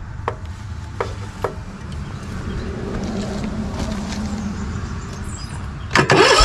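A low hum with a few light clicks, then near the end the electric starter kicks in and cranks the V-twin OHV mower engine with its spark plugs out, spinning up quickly into a fast, even cranking rhythm. The cranking pumps the compression gauge on the healthy cylinder.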